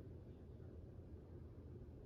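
Ceiling fan running steadily at high speed in reverse (updraft): a faint, even low whir of motor and moving air.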